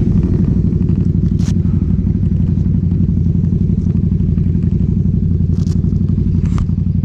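Sport motorcycle engine idling steadily with a rapid low pulse, and three short sharp clicks.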